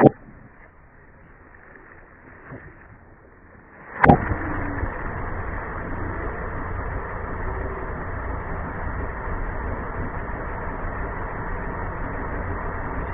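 A sharp pop or crack at the start, then a louder one about four seconds in, as objects burst or crunch under a car's tyres. A steady low rumble of the car follows to the end.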